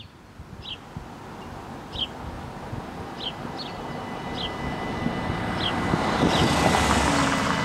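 Dutch level-crossing warning bells start up about two seconds in, heard as a steady high ringing with a second tone joining shortly after, as the crossing activates. Beneath them a rushing noise grows steadily louder, like an approaching vehicle, and a bird chirps about once a second.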